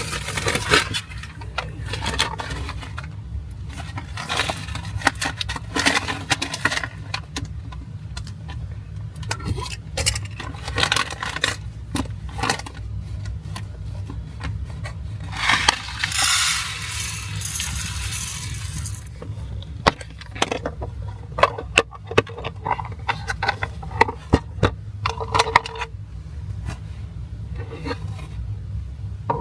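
Small cookware and utensils being handled: repeated clinks, taps and scrapes, with a hiss lasting about three seconds in the middle, over a steady low rumble.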